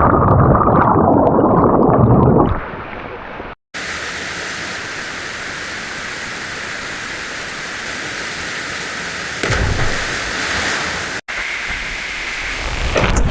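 Waterfall rushing: a steady hiss of falling water, joined for the first two seconds or so by a heavy low rumble close to the microphone. The sound breaks off briefly twice where the shots change.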